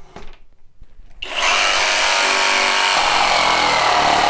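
Flex 24V brushless cordless jigsaw starting up about a second in and cutting steadily through yellow pine with full orbital action (setting three) and a multi-purpose blade. The motor and blade give a loud, steady buzz whose pitch sags a little partway through.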